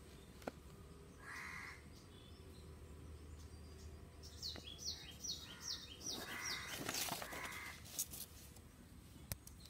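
Crows cawing a few times, faint, with a quick series of high falling chirps from a smaller bird in between.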